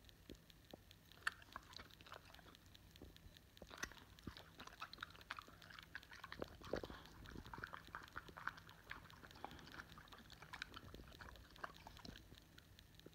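Boxer dog licking and smacking its lips and tongue as it works sticky peanut butter in its mouth: a run of faint wet clicks and smacks, with a few louder smacks about a second in and near seven seconds.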